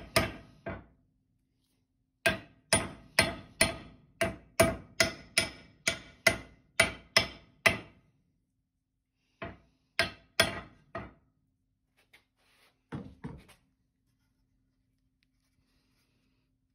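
Hammer blows on the steel head of a restored axe fitted to its hardwood handle, each strike sharp with a short metallic ring. About a dozen come at roughly two a second, then after a pause four more, and two last taps.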